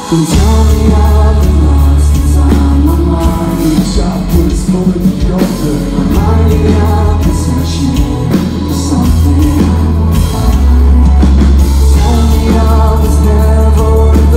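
Loud live metalcore band performance: sung lead vocals over distorted electric guitar, heavy bass and drums, with the full band coming back in right at the start after a brief break.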